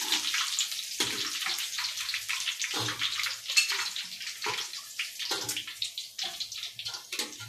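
Hot oil sizzling and crackling around breaded chicken wings in an iron karahi, the wings at the half-fried stage of a first frying. A few louder pops come every second or two.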